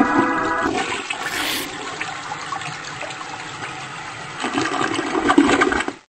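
A toilet flushing: a rush of water that eases off, swells again near the end and then cuts off abruptly.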